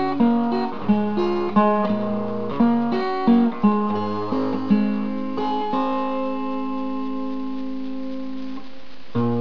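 Acoustic guitar played alone, picked and strummed chords with sharp attacks. About six seconds in, one chord is left ringing and slowly dies away, and a fresh strum comes just before the end.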